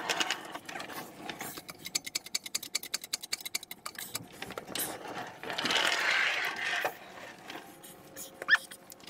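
Transmission jack being cranked up to raise a truck transmission: a quick run of ratcheting clicks, then a stretch of scraping as the unit is shifted, and a single sharp knock near the end.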